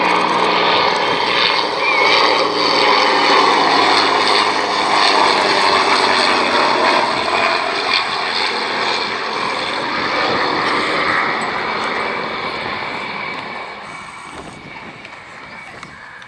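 Piston-engined propeller aircraft flying past, its engine note loud at first and then fading away over the last few seconds as it moves off.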